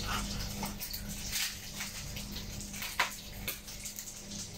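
A few short crinkles and tears of a plastic seasoning sachet being torn open by hand, over a steady hiss and low hum from the kitchen stove.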